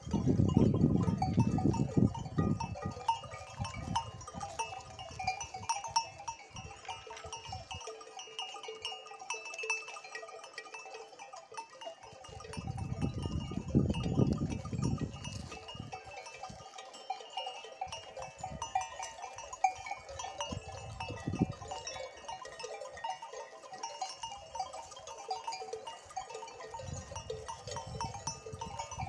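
Mixed flock of sheep and goats grazing, with occasional bleats. A low rumbling noise swells near the start and again about halfway through.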